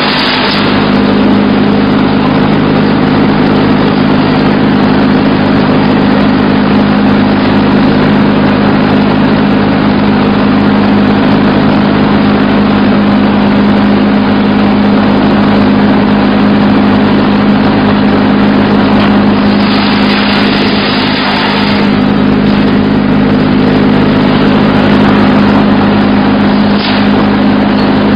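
Diesel engine of a mobile wood chipper running steadily at a constant speed, loud throughout, with short spells of harsher rushing noise near the start and about two-thirds of the way in.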